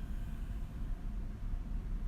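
Steady low rumble of background noise in the pause between snores, with no snore or distinct breath standing out.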